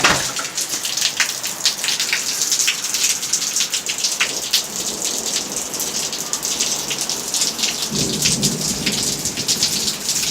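Heavy rain falling, with many sharp drops striking close by, and a low rumble of thunder for a second or two about eight seconds in.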